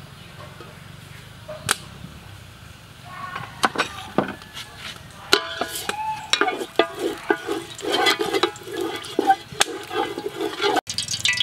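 Cooking oil poured into a hot aluminium pot, starting a few seconds in, then crackling and spitting as a wooden spatula scrapes and taps around the pot's bottom to spread it.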